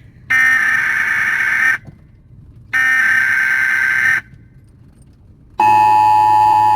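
Emergency Alert System tones played loud through a car's sound system. Two harsh buzzing data bursts of about a second and a half each, with a second's gap between them, are followed near the end by the steady two-tone attention signal. This is the alert that opens the emergency-broadcast announcement.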